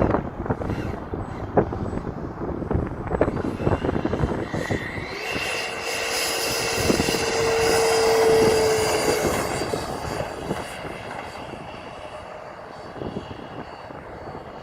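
Electric ducted fan of a 3D-printed F-86 Sabre model jet whining as it flies past. It grows louder to a peak about eight seconds in, then fades away.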